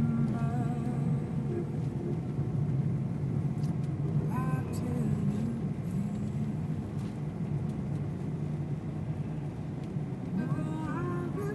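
Steady low engine and tyre noise heard from inside a car's cabin while driving on a wet road.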